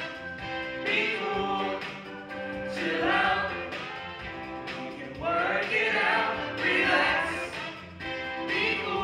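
A group of voices singing a musical-theatre song together, with instrumental accompaniment.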